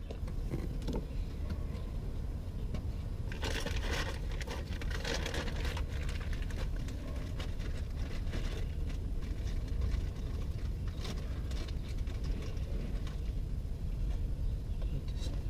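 Hand work on metal fittings and tools: scattered light clicks and scrapes, busiest a few seconds in and again past the middle, over a steady low rumble.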